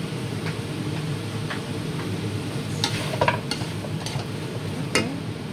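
A metal spatula stirring chunks of goat meat in a large metal pan, scraping and clinking against the pan several times, busiest about three seconds in. Underneath is a steady low rumble.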